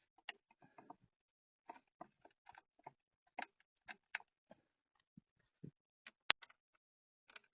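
Irregular light clicks and knocks of metal hand tools and small parts being handled, with one sharp click a little past six seconds in.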